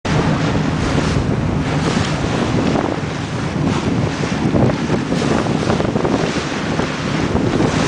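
Heavy wind buffeting the microphone over the rush of sea water and waves, a loud, unsteady noise.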